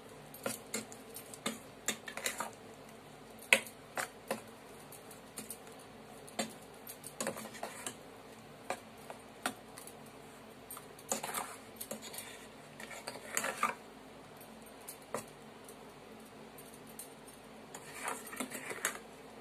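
Metal spoon clinking and scraping against a stainless steel bowl while prawns are mixed into a thick spice paste. The taps come irregularly, with busier spells of scraping and one sharp clink standing out.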